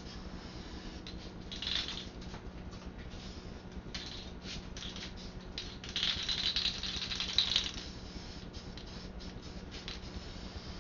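Aerosol can of filler primer being shaken, its mixing ball rattling in two rapid bursts, the longer and louder one about six seconds in. A faint steady low hum runs underneath.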